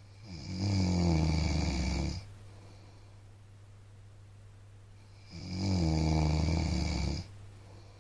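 A man snoring in his sleep: two long snores, each about two seconds, some five seconds apart.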